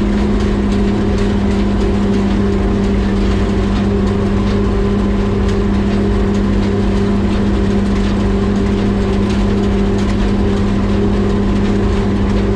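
Tractor engine running steadily at constant speed, a loud even hum with faint rattling ticks over it.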